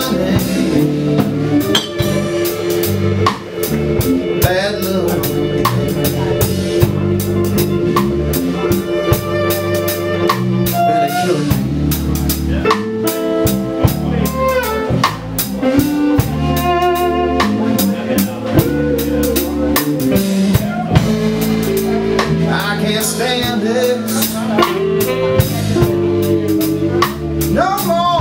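Live band playing: fiddle, saxophone, electric guitar, bass guitar and drum kit together, the fiddle and sax carrying held, wavering lead notes over a steady drum beat.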